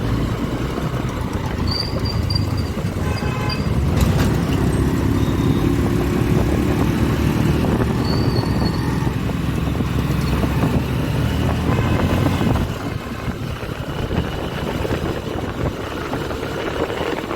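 Honda SP125 motorcycle on the move, heard from the rider's seat: its single-cylinder engine running under a steady rumble of road noise that eases about two-thirds of the way through. A few brief high beeps sound along the way.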